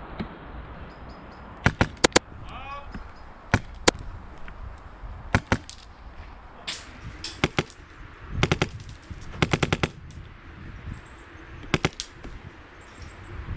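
Airsoft rifles firing: scattered single sharp shots in the first few seconds, then several short rapid bursts of a few shots each.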